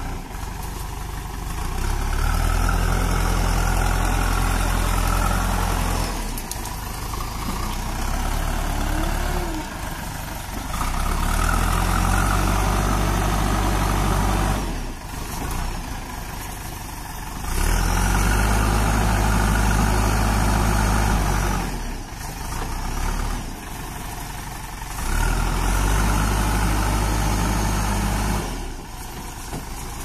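JCB backhoe loader's diesel engine idling and then revving up under hydraulic load in four bouts of a few seconds each, as the machine works its arms to push itself out of mud.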